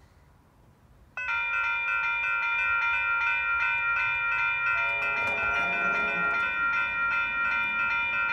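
Railroad crossing warning bell starting up suddenly about a second in, then ringing steadily with rapid evenly spaced strikes, about three a second: the crossing signals have activated for an approaching train. Lower bell tones join for a while midway.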